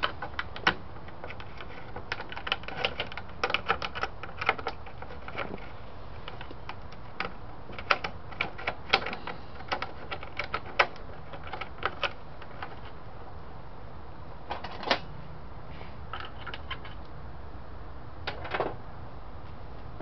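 Irregular clicks and taps of small hardware being handled: a four-prong bezel tool and fingers working the nut and knob off the wiper switch in a car's dash bezel.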